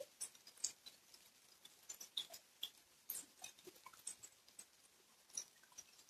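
Rain falling on a lawn and standing water: a faint even hiss with irregular taps of single drops landing close by.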